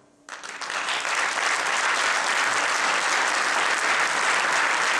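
Audience applauding, breaking out suddenly a moment in and then holding steady and full.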